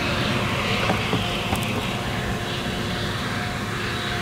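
Claas Jaguar 970 self-propelled forage harvester chopping triticale for whole-crop silage with its Direct Disc cutterbar header: a steady machine hum with a few held tones, and a couple of faint clicks.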